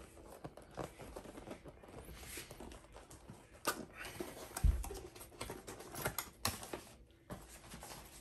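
Handling noises from opening a cardboard box: scattered clicks, taps and rustling, with a dull thump about four and a half seconds in.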